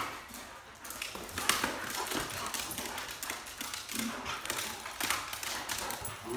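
Dogs' claws tapping and scrabbling on a hard tile floor as they wrestle and chase, with irregular thuds of paws and bodies.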